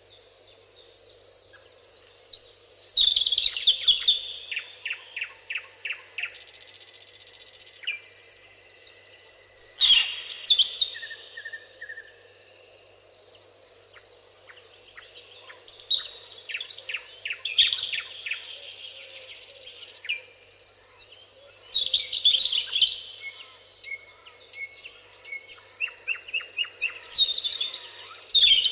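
Songbirds singing in a meadow, one bird repeating a song phrase about every six seconds: each phrase is a burst of high notes followed by a quick run of evenly spaced notes. A steady faint high tone runs underneath.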